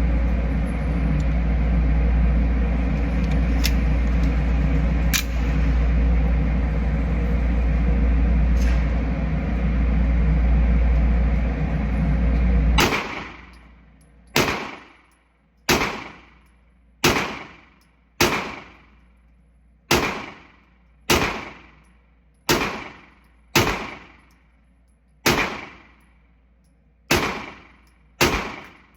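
A loud steady low rumble, then about thirteen seconds in it breaks off and handgun shots follow at an even, unhurried pace, roughly one every second and a quarter, each with a short ring-out.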